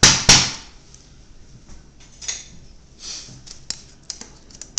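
An upturned metal cake pan knocks twice, sharply, on a plastic-wrapped countertop as a baked cake layer is turned out of it. Scattered light clicks and short crinkles of plastic wrap follow.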